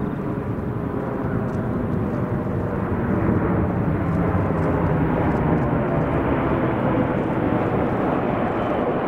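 Boeing KC-135 Stratotanker's four turbofan engines as the jet passes low overhead. The jet noise grows louder over the first three seconds, then holds loud and steady as the aircraft flies on past and away.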